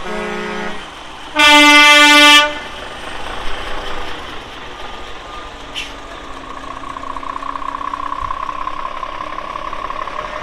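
Lorry air horns sounding as a truck leaves the show: a short, quieter toot, then a loud blast lasting about a second.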